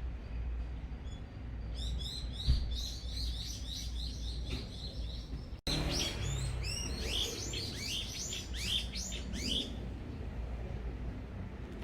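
Songbird twittering in quick runs of short, high chirps, in two bouts split by a brief dropout, over a steady low rumble. A single thump comes about two and a half seconds in.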